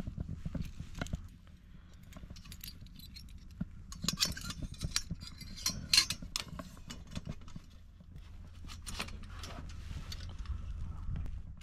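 Sheet-metal wood stove parts clinking and clattering as they are handled and fitted together: scattered light metallic clicks, busiest in the middle with the loudest clank about six seconds in, over a low steady rumble.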